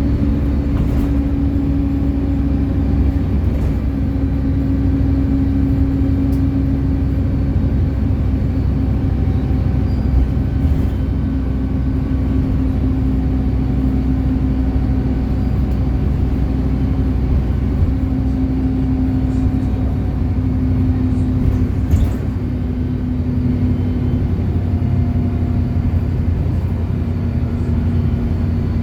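City bus on the move: steady engine and road rumble with a steady drone that sinks a little in pitch near the end.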